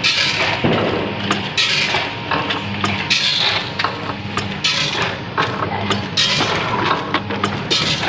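Granule packing machine running while it packs beans, working through a cycle about once every second and a half. Each cycle brings a burst of hiss, with clicks and knocks from the mechanism over a low hum.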